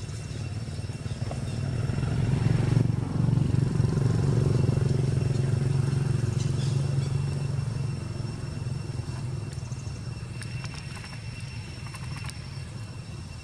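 Low engine hum of a passing motor vehicle that swells a couple of seconds in and fades away after about seven seconds, over a thin steady high tone.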